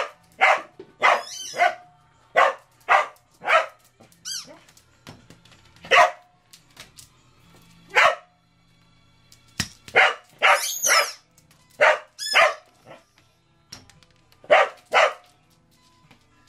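Cardigan Welsh Corgi barking in short, sharp, excited barks at irregular intervals, with a few high wavering squeals between them.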